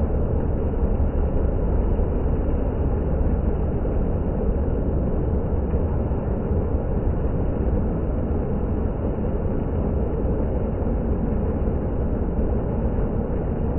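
Water fountain splashing and rushing steadily, a continuous even wash of water noise.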